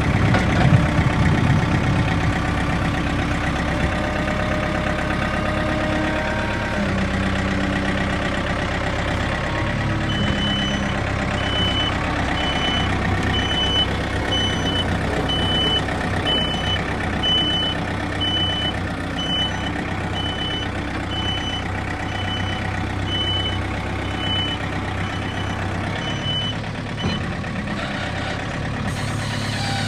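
Backhoe diesel engine running under varying load, its pitch rising and falling as it works. About a third of the way in, its backup alarm starts beeping steadily as it reverses, and the beeping stops shortly before the end.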